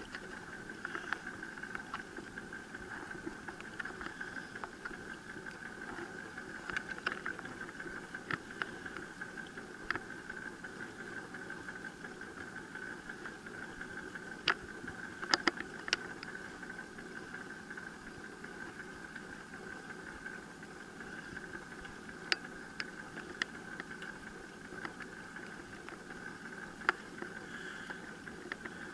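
Chain drive of a human-powered pedal boat running steadily as it is pedalled, a continuous mechanical whir, with scattered sharp clicks and knocks.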